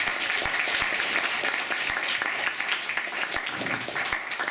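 An audience applauding to welcome a speaker: many people clapping steadily, thinning out near the end.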